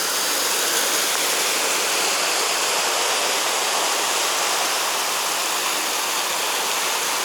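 Natural waterfall rushing steadily, a constant hiss of falling water.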